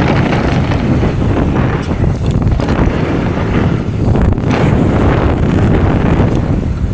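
Loud, steady wind noise buffeting the microphone of a camera carried on a mountain bike riding fast downhill.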